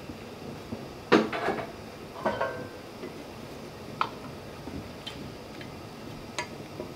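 Stainless saucepan and metal spoon clinking and knocking as plum jam is scraped from the pan into a plastic canning funnel over a glass jar: about half a dozen separate clinks, the loudest about a second in, one with a short metallic ring.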